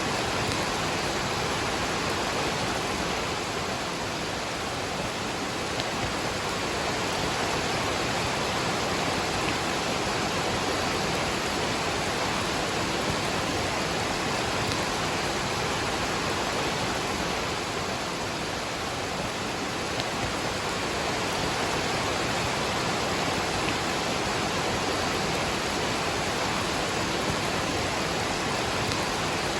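Waterfall rushing steadily with rain falling, a continuous even roar of water.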